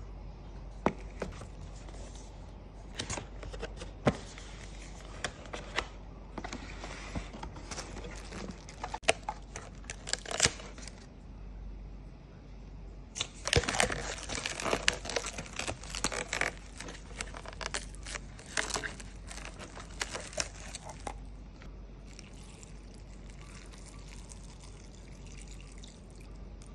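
Plastic takeout packaging being handled: scattered clicks and crinkles of containers and lids, then a dense stretch of crackling as cling film is peeled off a plastic tub of ramen broth. Near the end the broth is poured from the tub into a paper ramen bowl.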